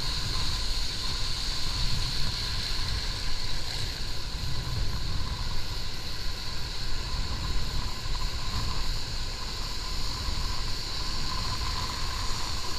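Strong sea wind buffeting the microphone in a constant low rumble, with a faint steady high-pitched whine over it.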